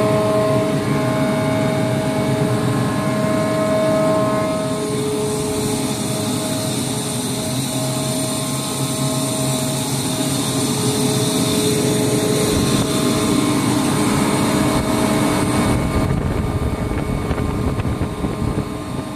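Rotary screw air compressor running steadily on test: a steady mechanical rush with a whine of several held tones, whose pitch pattern changes about four to five seconds in.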